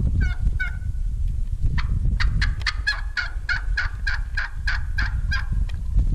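Wild turkey hen calling: two short notes at the start, then from about two seconds in a steady run of around fifteen yelps, about four a second. A low rumble runs underneath.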